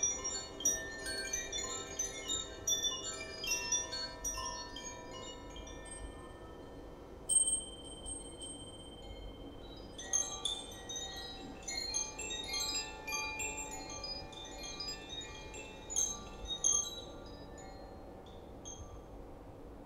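Wind chimes ringing in loose clusters of short, high tones. One single longer ringing note sounds about seven seconds in, and the chiming thins out near the end.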